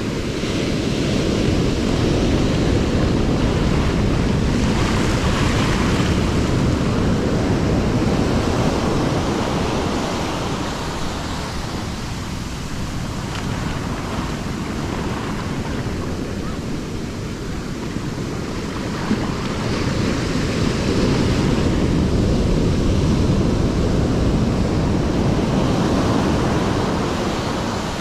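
Heavy surf from a big south swell: broken whitewater rushing and foaming all around, in two long surges with a lull between them.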